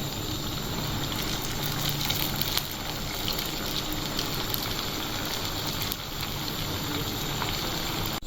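Potato bites deep-frying in hot oil: a steady sizzling hiss with scattered small crackles.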